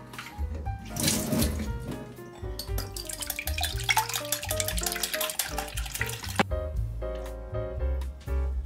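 Background music over a wire whisk beating raw eggs in a glass bowl: a quick run of clicking and sloshing for a few seconds in the middle, then it stops.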